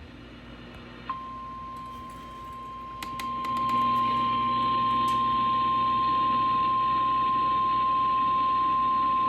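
Emergency Alert System attention signal played through an FM radio: a single steady tone near 1 kHz that starts about a second in and gets louder a few seconds later, over a low hum, with a few clicks around three seconds in.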